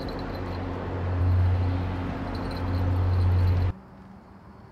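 A steady low mechanical hum with a rushing noise behind it, cutting off abruptly about three and a half seconds in.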